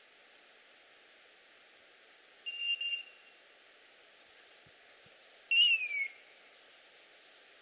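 A dog's beeper collar sounding twice, about three seconds apart: first a level beep broken into short pulses, then a tone that falls in pitch. The repeated beeping in point mode signals that the setter has stopped and is holding its point.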